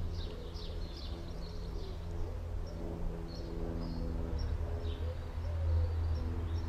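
Small birds chirping and twittering in short high calls scattered throughout, over a steady low hum.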